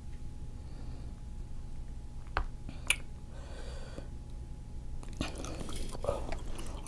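Close-miked chewing and mouth sounds of a person eating octopus. A couple of sharp clicks come between two and three seconds in, then a run of wet smacking and crackling from about five seconds on.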